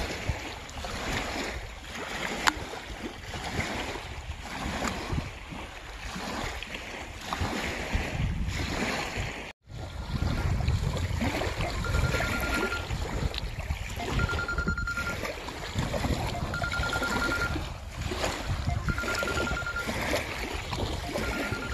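Wind buffeting the microphone over small waves lapping at the shore. After a sudden break about ten seconds in, a steady electronic beep starts repeating about every two and a half seconds, each beep just under a second long.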